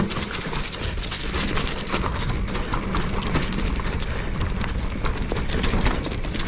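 Mountain bike rolling down a rough dirt singletrack: a steady low rumble from the tyres over roots and leaf litter, with many quick clicks and rattles from the bike as it bounces over the ground.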